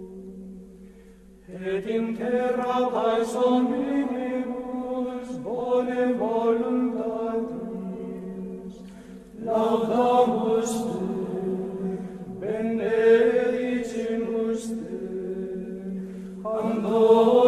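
Choral chant sung in long held notes, with a new phrase swelling in every three to four seconds.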